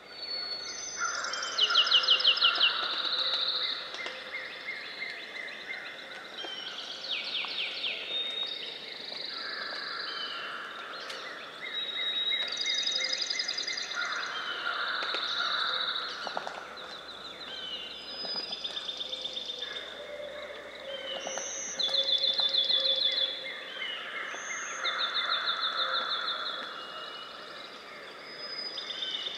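Dawn chorus of several songbirds singing over one another: fast trills of rapidly repeated notes and shorter whistled phrases, one after another, with a loud trill about two seconds in.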